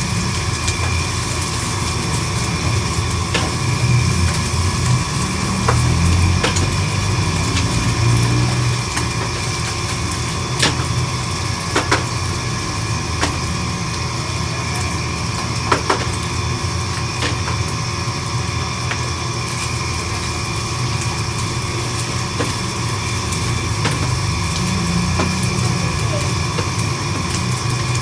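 Steady mechanical drone of kitchen equipment running, with a few sharp clinks of a metal spatula against a frying pan as food is turned.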